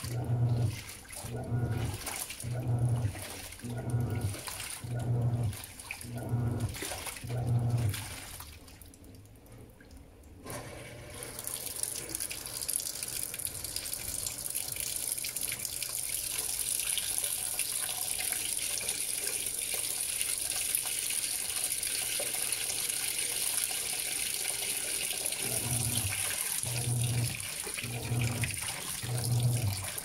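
Panasonic 16 kg top-load washing machine agitating, its motor humming in strokes about once a second with laundry water sloshing. The strokes stop about eight seconds in. After a short lull, water pours steadily into the drum for about fifteen seconds, and agitation resumes near the end.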